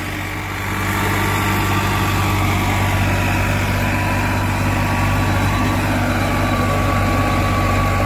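Farmtrac 60 tractor's diesel engine running steadily at full throttle in second gear, driving a 7-foot Shaktiman rotavator whose blades churn through the soil. It gets a little louder about a second in.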